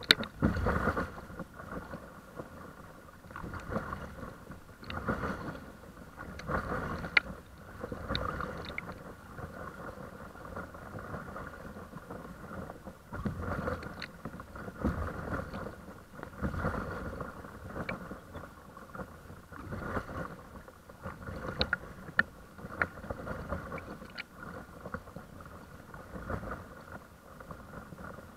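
Paddle strokes in the water, one every one to two seconds, with water splashing and lapping against the paddleboard's hull, picked up from the board's deck. A few light knocks are heard among the strokes.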